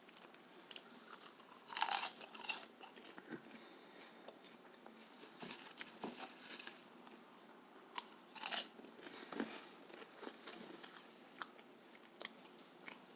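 Someone eating microwave popcorn close to the microphone: soft crunching and chewing in short bursts, the loudest bites about two seconds in and again past the eight-second mark.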